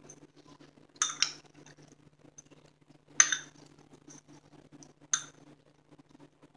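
Metal spoon stirring chana masala chaat in a glass bowl, clinking sharply against the bowl three times, about a second, three seconds and five seconds in, with quieter stirring between. A faint steady hum runs underneath.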